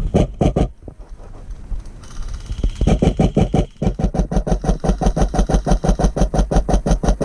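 Airsoft gun firing close by: a quick string of three shots at the start, then from about three seconds in a long, fast, steady full-auto burst of mechanical clacking.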